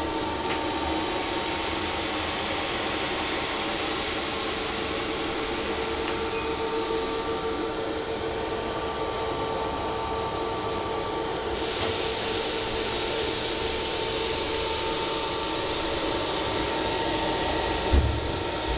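Steady running hum of machinery on a test bench, with a faint steady tone under it. About two-thirds of the way through a loud high hiss starts and carries on, and there is a single thump near the end.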